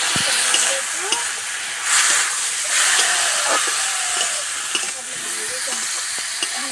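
Water sizzling and hissing into steam in a hot metal kadai of fried spiced vegetables, while a metal spatula stirs and ticks against the pan. The hiss swells about two and three seconds in.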